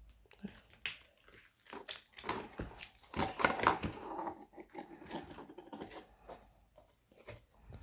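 Slime or putty being squeezed and pulled in the hands, a dense run of wet clicks and pops that is loudest around the middle.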